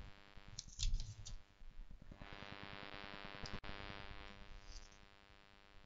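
Faint rustle about a second in and a single sharp click a little past the middle, over a low steady hum and hiss.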